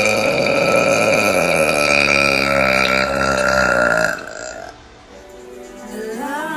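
A long, loud human burp lasting about four seconds, its pitch sinking slightly as it goes, then a quieter stretch; near the end another wavering vocal sound starts.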